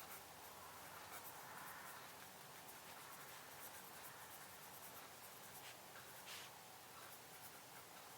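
Faint sound of writing on paper, with a few light clicks.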